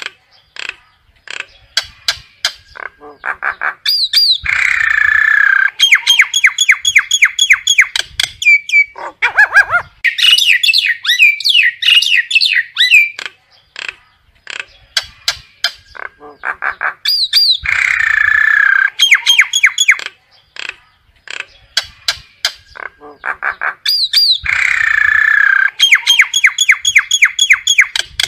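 Common myna calling: a busy run of harsh squawks, rapid clicking notes and whistled glides, with the same long phrase coming round again several times. These are the myna's flock calls.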